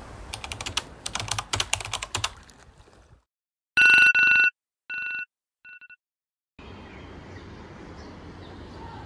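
A run of crackling clicks, then a short silence, then an electronic phone alarm beeping four times: two loud beeps close together, then two fainter ones. A steady, faint outdoor ambience follows.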